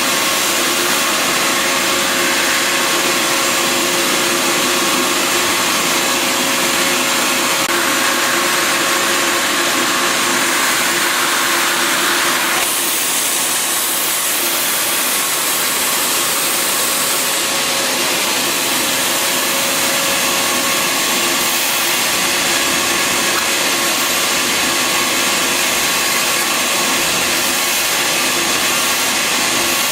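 Bissell Garage Pro wet/dry shop vacuum running steadily, its motor giving a continuous loud whine and rush of air. The tone shifts slightly about twelve seconds in.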